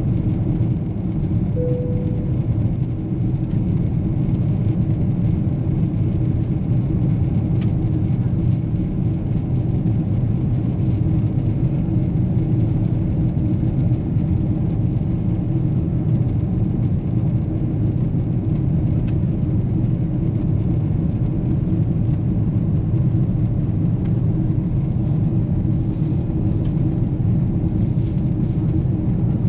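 Steady low rumble of a Boeing 777's engines and rushing air, even in level throughout, with a short low tone about two seconds in.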